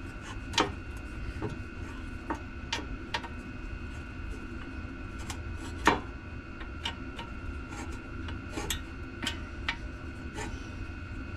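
Irregular light clicks and taps of a hand tool and small screws against plastic parts as the door-pocket halves are handled and screwed together, with one louder knock about six seconds in.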